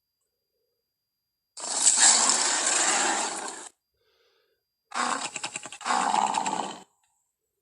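Carnotaurus movie creature sound effect: a roar of about two seconds, then after a pause a rattling, juddering growl that runs straight into a second, shorter roar, each cutting off abruptly.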